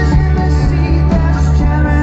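Rock band playing live, with a heavy bass line under guitar and drums.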